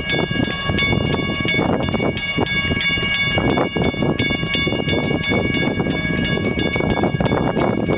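East Penn Railroad diesel locomotive moving slowly, a steady rumble with a high-pitched ringing whine and many rapid clicks and rattles.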